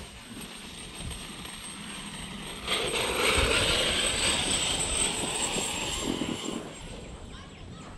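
Small electric motors whirring: a radio-controlled Traxxas X-Maxx monster truck running over grass, with a camera drone's propellers. The sound swells louder for about four seconds in the middle, then fades.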